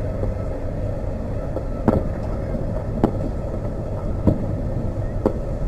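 Fireworks shells bursting, four sharp reports roughly a second apart, over a steady low rumble of background noise.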